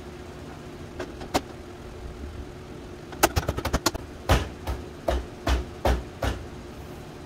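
Aftermarket ABS plastic grille being pushed and struck by hand into a Toyota Sequoia's front end: two clicks, then a quick run of plastic clip snaps about three seconds in, followed by six dull thumps about two and a half a second as the grille is palmed home.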